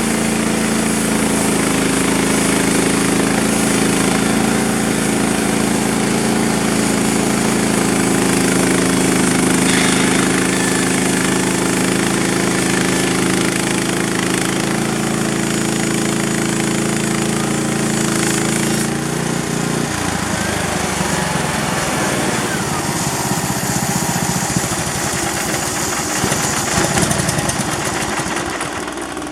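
Engine running steadily with a constant hum; about twenty seconds in its sound changes and turns rougher.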